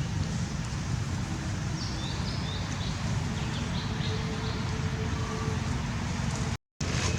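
Steady low outdoor rumble, with short high-pitched animal chirps in two brief clusters a couple of seconds in and around the middle. The sound cuts out for a moment near the end.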